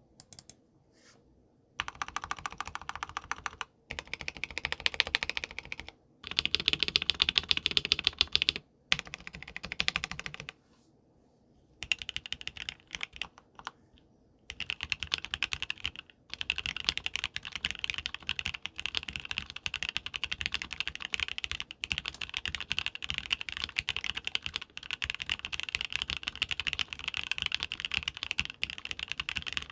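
Typing on a KBDfans KBD67 Lite R2 mechanical keyboard with lubed Gateron Ink Black v2 linear switches and GMK keycaps: rapid keystrokes in short bursts with brief pauses, then steady continuous typing for the second half.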